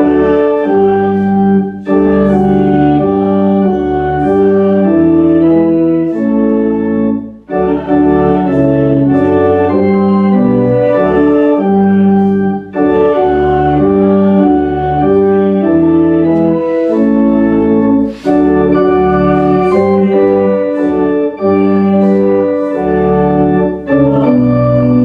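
Organ playing a hymn tune in sustained chords, pausing briefly between phrases.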